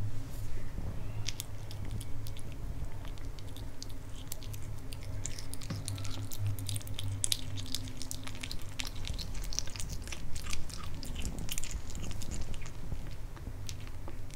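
A kitten biting and chewing pieces of raw pork: quick, wet clicks and smacks, close up, over a low steady hum.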